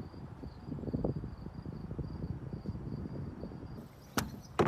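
An insect chirping in a steady, evenly pulsing high trill over a low wind rumble; it stops near the end, where two sharp knocks follow.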